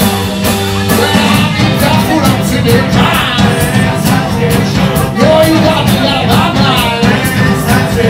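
Live rock and roll band playing with a steady drum beat, electric guitar and bass guitar, and a man singing lead into the microphone.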